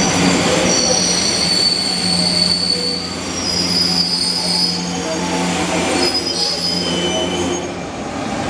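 Senseki Line electric commuter train pulling in alongside a platform and slowing to a stop, its wheels and brakes squealing with several high tones over a steady low motor hum and rumble. The hum and rumble die away as the train halts near the end.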